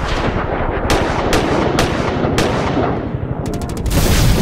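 Gunfire sound effects over a dense rumble: four single shots spaced about half a second apart, then a rapid machine-gun burst near the end and a heavy hit.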